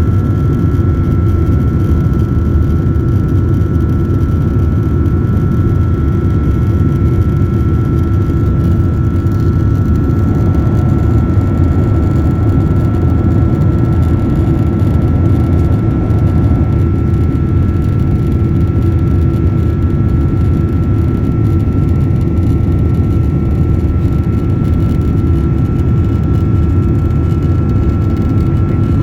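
Steady jet engine and airflow noise inside the cabin of a Boeing 767-400ER: a loud, even rumble with a constant high whine on top.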